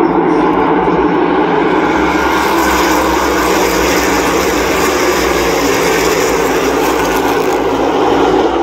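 A pack of NASCAR Cup Series stock cars accelerating past on a restart, their V8 engines running together at full throttle as one loud, dense engine drone. The sound grows sharper from about two seconds in, as the field goes by closest, and eases slightly near the end.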